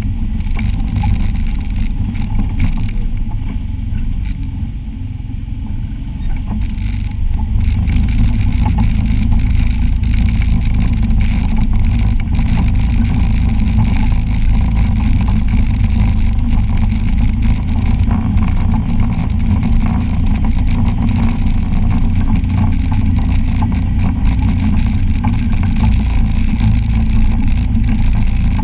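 Side-by-side UTV engine running as it drives a rough rocky trail, easing off a few seconds in and picking up again about eight seconds in, with knocks and rattles from the rocks under the wheels.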